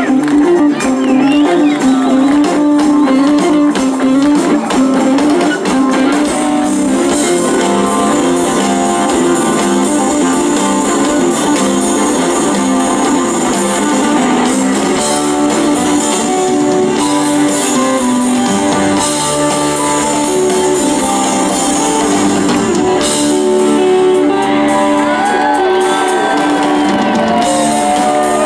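Live Southern rock band playing at full volume: electric guitars over bass and drums in a steady, dense instrumental passage.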